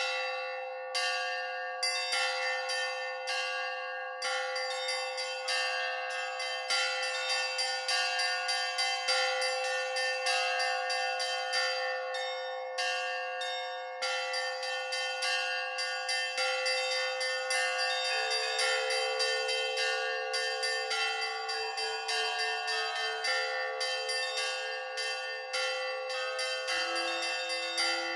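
Church bells ringing: many quick strikes over sustained ringing tones. A lower bell joins about two-thirds of the way through, and a still lower one near the end.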